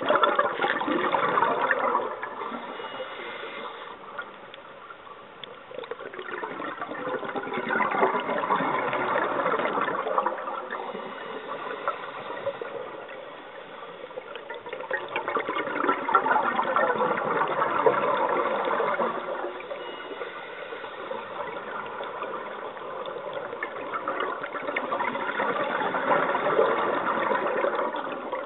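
Scuba regulator exhaust bubbles heard underwater, rushing in four long surges roughly eight to nine seconds apart, quieter in between, the rhythm of a diver breathing out.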